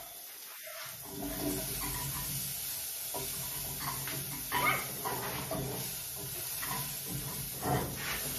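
Food frying in a pan on a gas stove: a steady sizzle that starts about a second in, with a few short whines over it.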